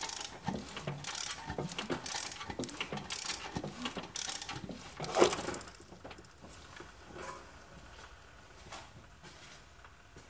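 Mechanical ratcheting clicks in short bursts, about one a second, which stop about halfway through and leave only a few faint clicks.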